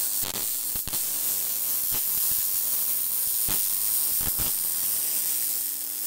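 Electric arc welding on a steel workbench frame: a steady crackling hiss with occasional sharper pops.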